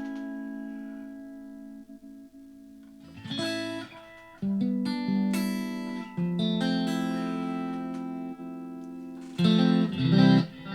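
Electric guitar played through a Blackstar ID:Core 40 combo amp on a clean voice with its delay effect switched on: a chord rings out and fades, then new chords are strummed about 3, 4.5 and 6 seconds in and let ring, with a few quick strums near the end.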